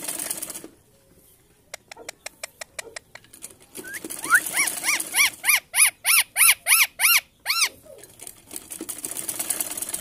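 Rose-ringed parakeet giving a fast run of about a dozen harsh, rising-and-falling calls, about three a second, for some three and a half seconds. A string of light clicks comes before it.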